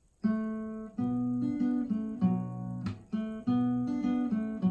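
Acoustic guitar being strummed, starting a moment in with a run of chords that change about every half second. A sharp percussive hit on the strings comes about three seconds in.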